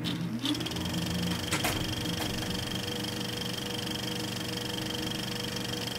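Trailer sound design: a steady mechanical whirring drone with a high hum. There is a short rising tone at the very start and a few sharp clicks about one and a half and two seconds in.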